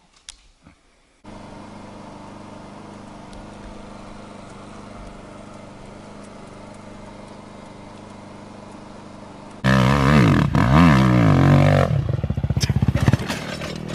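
A dirt bike engine idling steadily. About ten seconds in, a much louder dirt bike revs up and down hard, then its sound breaks into choppy pulses.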